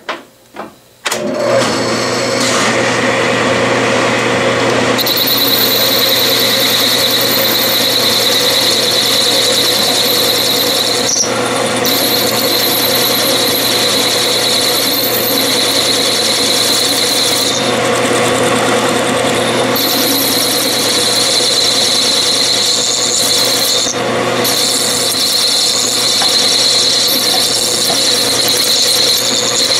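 Metal lathe started after a couple of clicks about a second in and running steadily with a low hum. A cutoff tool is grooving a spinning aluminium bar, with a high, steady squeal from the cut that comes and goes from about five seconds in.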